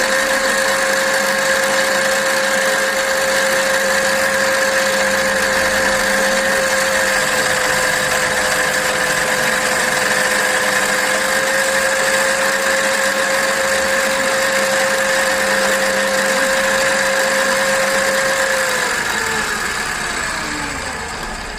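Mini lathe's electric motor running at a steady speed with a constant whine, then switched off about 19 seconds in, its pitch falling and the sound fading as it spins down.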